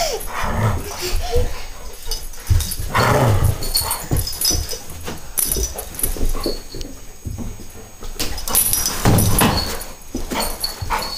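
Airedale terrier sounds close to the microphone, coming in irregular bursts with short gaps between them.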